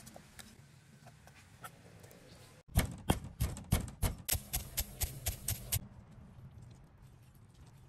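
Wooden pestle pounding in a wooden mortar, a run of regular thuds about four a second for about three seconds. Before it come faint taps of a knife cutting fish on a wooden board.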